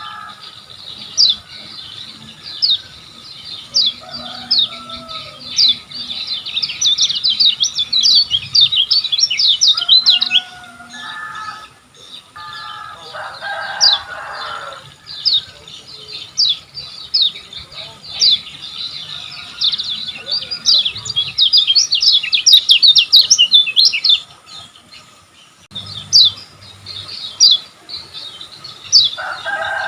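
Kecial kuning (a white-eye) singing: fast runs of high, sharp, downslurred chirps packed into rattling bursts, with short breaks between runs. A lower, harsher chattering call breaks in briefly about halfway through and again near the end.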